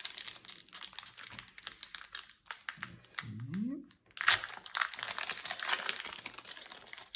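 Plastic foil wrapper of a trading-card booster pack crinkling as it is handled and opened, many small crackles with a louder one about four seconds in.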